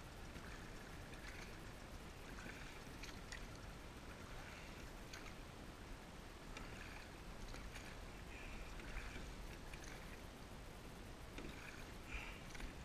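Kayak paddle strokes: the blade dipping and pulling through calm water, with soft splashes and drips about once a second over a low steady rumble.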